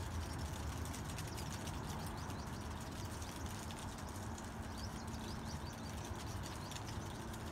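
Wind blowing outdoors, with a steady low rumble and a constant scatter of small ticks and clicks.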